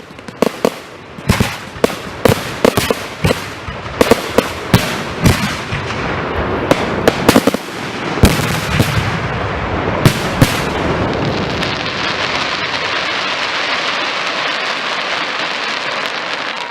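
Fireworks finale: a rapid volley of sharp bangs, several a second, that gives way about ten seconds in to a dense, steady crackling.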